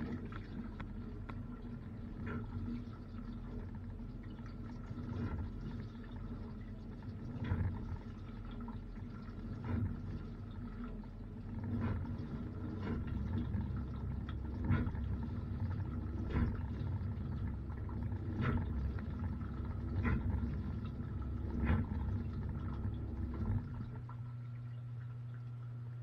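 Dishwasher running its wash cycle, heard from inside the tub: a steady pump hum under spraying water, with a sharp splash against the camera about every two seconds. About 23 seconds in the spraying stops, leaving a steady hum.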